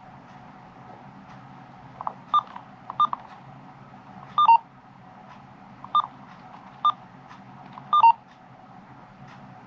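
Short electronic beeps from a Uniden BCD436HP police scanner over a faint steady hum and hiss. There are about seven beeps, irregularly spaced, and two of them step down from a higher to a lower tone.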